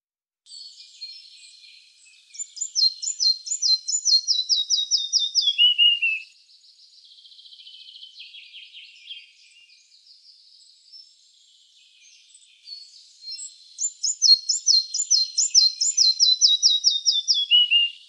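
Red-breasted flycatcher singing: two song phrases, each a quick run of repeated high notes that steps down in pitch and ends in a lower trill, with softer notes between the phrases.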